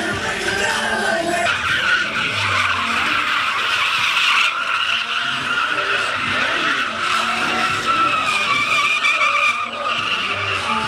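Tires squealing without a break as a Ford Crown Victoria sedan spins donuts in a smoky burnout: a steady high screech that wavers slightly in pitch.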